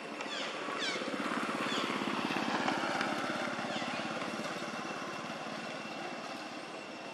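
A motorbike engine passing by, growing louder to a peak about two and a half seconds in and then slowly fading. A few short falling bird chirps sound over it in the first four seconds.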